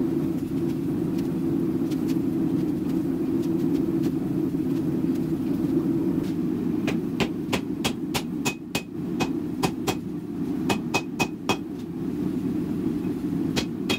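Hand hammer striking a red-hot steel billet on an anvil, ringing blows in quick runs of two or three a second, starting about halfway through. Under it a steady low roar runs throughout.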